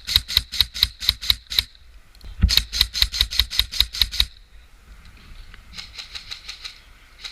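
Airsoft gun firing three quick strings of shots, about five a second: two loud strings close by, then a fainter one further off near the end.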